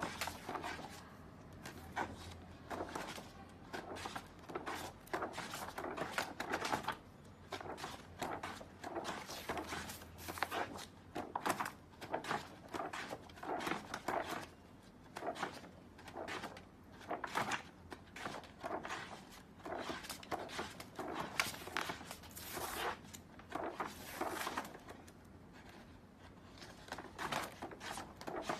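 Thick wallpaper sample sheets in a large sample book rustling and flapping as they are turned over one after another, in short, irregular swishes.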